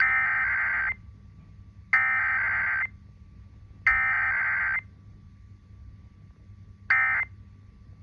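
Emergency Alert System SAME header: three loud, buzzy digital data bursts of about a second each, a second apart. A much shorter burst about 7 s in begins the end-of-message code.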